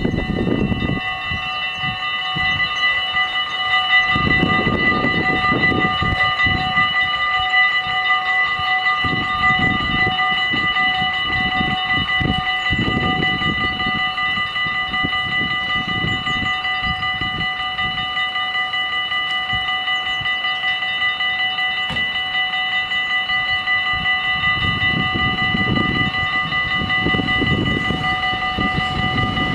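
Dutch level-crossing warning bells ringing without a break, a steady ringing at several pitches that starts suddenly as the crossing activates. They warn of an approaching tram. Irregular low rumbles come and go underneath.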